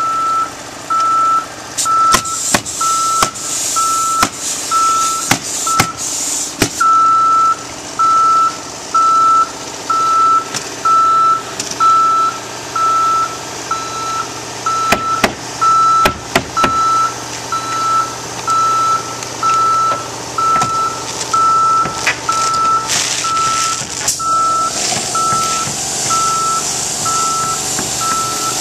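A vehicle's reversing alarm beeping steadily at an even pace. Sharp snaps of pneumatic roofing nailers come over it, several in quick succession early on and again later.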